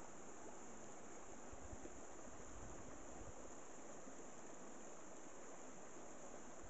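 Fast-flowing stream, swollen by heavy rain, rushing over rocks: a steady, even hiss.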